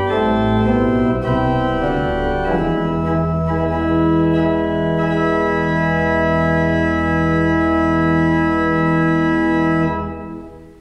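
Church pipe organ playing a few chord changes, then a long held final chord that is released about ten seconds in, the sound dying away in the room.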